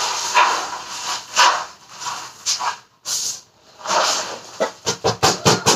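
Grass broom swishing across a bare floor in repeated strokes, sweeping dust into a plastic dustpan, with a quicker run of short strokes near the end.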